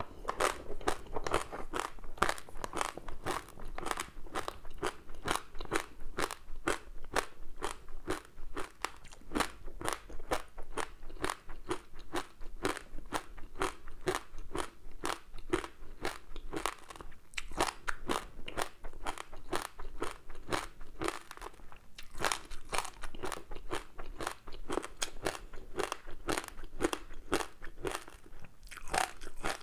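Close-miked chewing of a crispy seaweed-wrapped rice snack: quick crisp crunches, about three to four a second, with a couple of short pauses.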